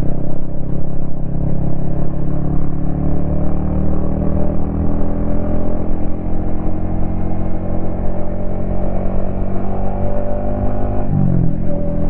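Yamaha XSR155's single-cylinder engine running under way, its revs climbing slowly and steadily, then dropping sharply near the end.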